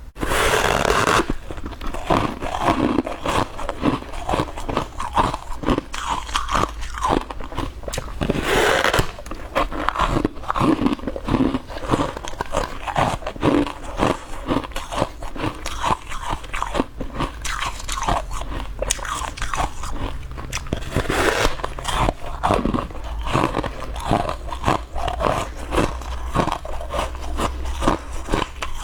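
Close-up biting and chewing of hard clear ice: a rapid, irregular run of cracking crunches between the teeth, with louder bites near the start and about eight seconds in.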